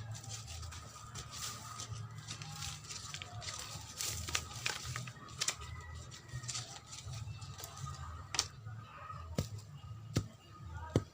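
Irregular clicks, crackles and rustling, as of things being handled, over a steady low rumble.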